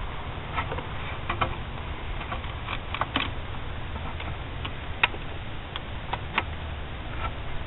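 Scattered light clicks and taps as a metal idle air control valve and its screws are handled and set in place by hand on the throttle body. A low steady rumble lies under them.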